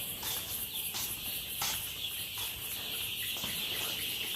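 Many young chicks peeping together in a dense, steady chorus, with a few faint taps.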